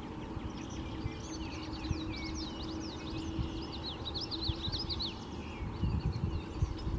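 Male common yellowthroat singing: a run of quick, repeated high sweeping notes from about two seconds in to about five seconds. A low rumble and a faint steady hum sit underneath.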